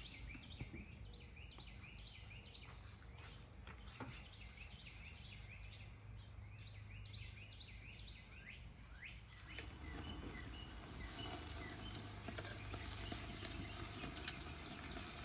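Faint outdoor chirping of small birds or insects, repeated many times. About nine seconds in, a louder steady hiss sets in: steaks sizzling on a ceramic kamado grill.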